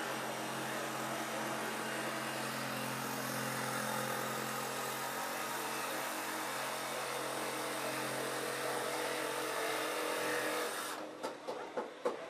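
A power tool's motor running steadily, cutting off abruptly about eleven seconds in, then a quick run of sharp knocks on wood, about three a second.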